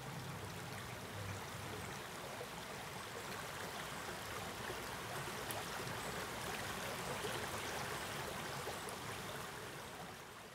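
Steady, even rushing of running water, easing off near the end.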